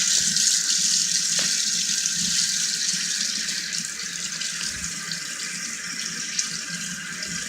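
Sink tap running steadily, water splashing into the basin, left on so the water comes through hot.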